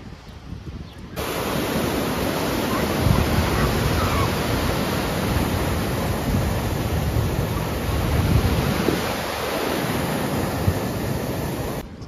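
Pacific Ocean surf: waves breaking and washing up the beach in a steady rush that swells twice. It starts abruptly about a second in and cuts off abruptly just before the end.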